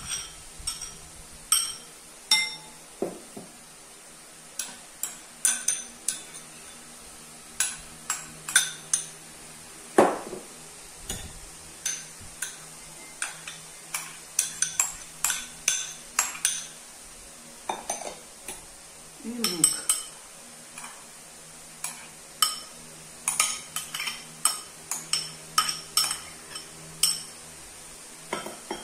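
A metal spoon clinking and scraping against ceramic bowls as chopped filling ingredients are spooned and tipped from one bowl into another. The clinks are sharp and irregular, some ringing briefly.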